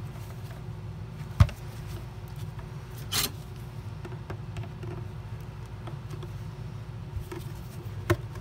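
Plastic latch clips of a Dyson DC33 cyclone assembly clicking and scraping as a flat-blade screwdriver pries them loose. There is one sharp click about a second and a half in, a short scrape about three seconds in, and lighter clicks near the end, over a low steady hum.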